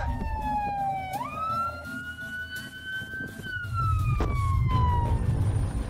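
A siren wailing through one slow cycle: its pitch sinks, jumps up sharply about a second in, holds high, then slides down and fades about five seconds in. A low rumble runs underneath.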